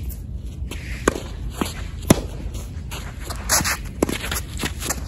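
Tennis rally: a series of sharp pops from the ball hitting racket strings and bouncing on the court, the loudest about two seconds in, with the near player's stroke about four seconds in and shoe scuffs on the court surface.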